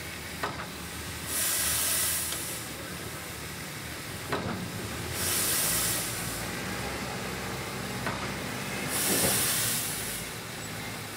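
Standing QJ 2-10-2 steam locomotive giving off steam in regular loud hisses about every four seconds, each a second after a sharp click, over a steady low rumble.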